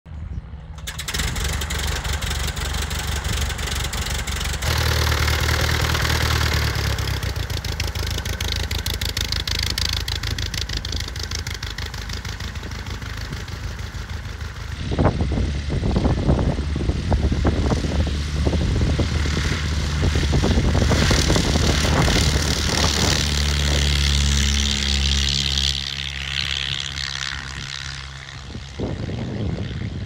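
Tiger Moth biplane's piston engine started by hand-swinging the propeller, catching about a second in and then running steadily. It runs up for the take-off roll and climb-out, with heavy wind rumble on the microphone over the second half.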